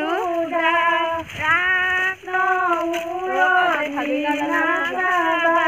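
A woman singing an Assamese biya naam (traditional wedding song) unaccompanied, in long drawn-out notes that slide between pitches, with short breaks for breath.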